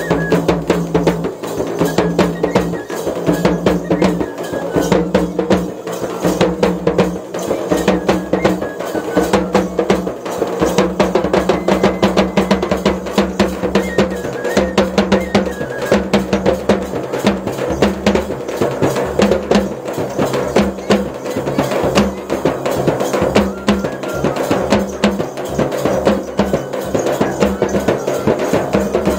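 Drum-led music: fast, dense drumming over a steady sustained tone.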